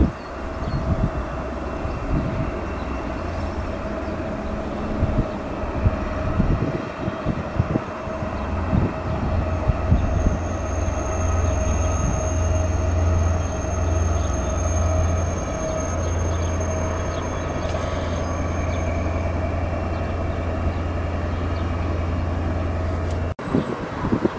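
SNCF CC 72000-class diesel locomotive approaching with its coaches, its diesel engine droning steadily and growing louder as it nears. A thin high squeal is held for several seconds around the middle. The sound cuts off abruptly near the end.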